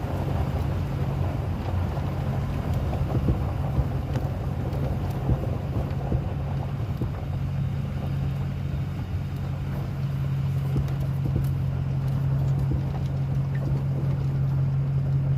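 Car engine running steadily, heard from inside the cabin as a low, even hum with light road or wind noise.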